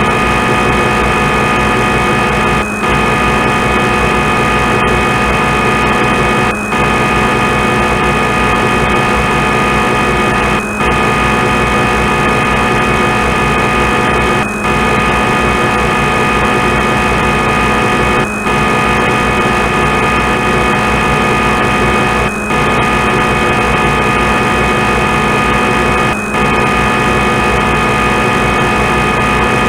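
Looped machining sound effect of a CNC lathe simulator: a steady mechanical drone of many fixed tones, with a brief dropout about every four seconds where the loop restarts.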